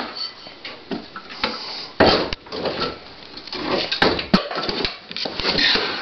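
Irregular metal clanks, knocks and scraping as a Yamaha Phazer II snowmobile's fan-cooled 480 engine is worked loose in its engine bay. There is a heavy thump about two seconds in and two sharp clicks about four seconds in.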